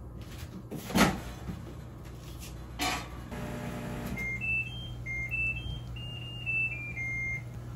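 Microwave oven set to low power to warm a raw egg: two sharp clicks, the loudest about a second in, then a low steady hum as it starts running, while it plays a short electronic tune of high beeps.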